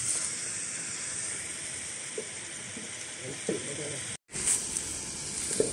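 Steady outdoor background hiss with faint, distant voices now and then. The sound drops out completely for a moment just after four seconds in.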